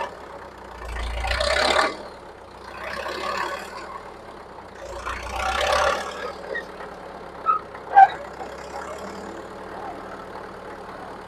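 Heavy machinery engine running, surging louder three times, with two short, sharp squeaks about half a second apart, then settling to a steady run.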